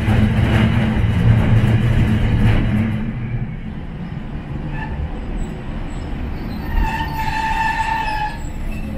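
Hiroshima Electric Railway 700 series tram running, heard from inside its rear cab. A heavy rumble of motors and wheels dies down about three seconds in as the tram slows. A brief high squeal comes near the end as it draws to a stop.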